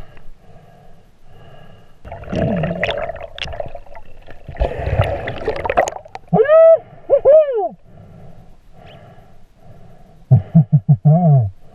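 Underwater sound of a diver breathing through the mouthpiece: a low bubbling gurgle throughout, with two loud rushes of exhaled bubbles in the first half. Then come muffled, hooting vocal sounds made into the mouthpiece: two rising-and-falling calls just past the middle and a quick run of short ones near the end.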